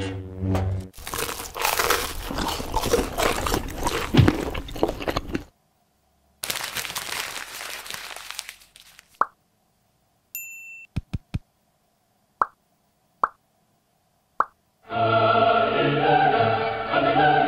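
Stop-motion sound effects for fried chicken being eaten: a few seconds of loud crunching, a fading burst of noise, a short beep, a few clicks and four quick plops. Dramatic choral music starts near the end.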